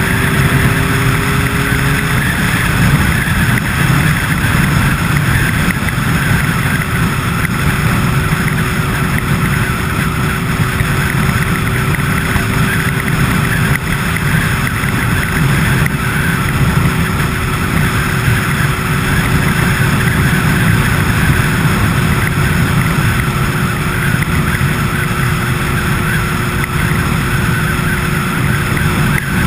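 Steady running noise of a moving vehicle, even and loud, with a faint constant whine under it.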